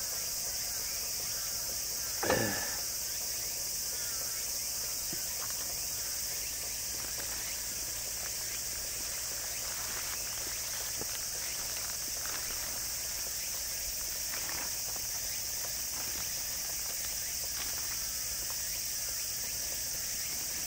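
Steady high-pitched insect chorus, with one short knock about two seconds in.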